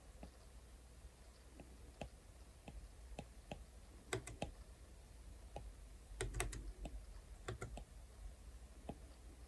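Hard stylus tip tapping and clicking on a tablet's glass screen in irregular drawing strokes, with bunches of clicks about four seconds in and again between six and eight seconds, over a faint low hum.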